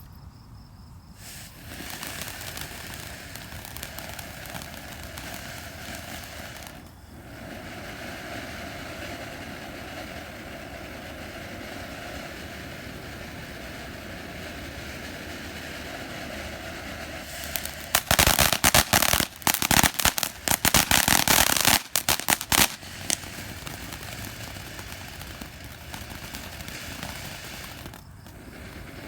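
A lit ground fountain firework hissing as it sprays sparks. About two-thirds through it breaks into a few seconds of rapid, loud crackling pops, then goes back to hissing until it dies down near the end.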